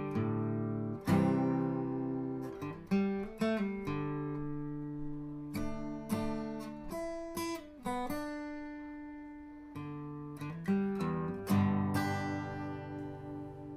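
Acoustic guitar music: single notes and chords plucked and strummed, each ringing out and fading before the next.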